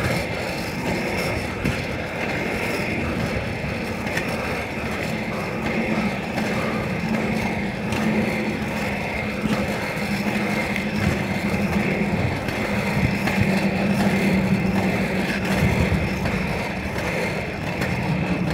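Inline skate wheels rolling on an asphalt road: a steady rolling rumble and scrape, with a low hum that grows stronger midway.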